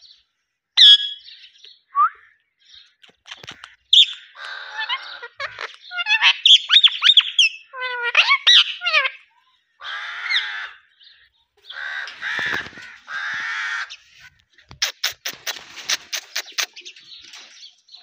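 Indian ringneck parakeet calling in a varied string: whistled chirps and sliding notes, harsh raspy squawks, and a fast run of sharp clicking notes near the end.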